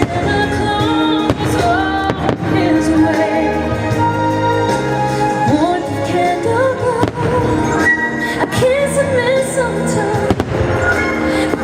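Holiday fireworks show soundtrack of music and singing playing loudly over firework bursts. A handful of sharp bangs cut through the music at irregular intervals of one to several seconds.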